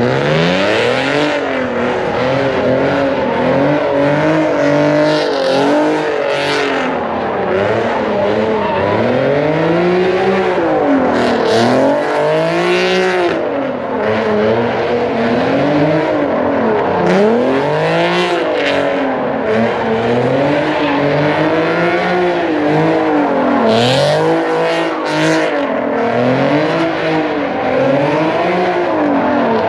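A car engine revving up and dropping again over and over while the car does donuts, with tyre squeal at times.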